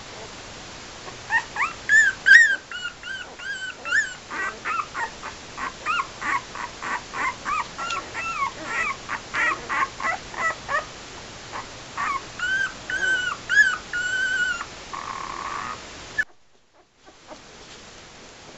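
Eight-day-old puppies whimpering and squeaking in high, thin cries. A few longer wavering cries come first, then a fast run of short squeaks several a second, then more long wavering cries, until the sound stops abruptly near the end.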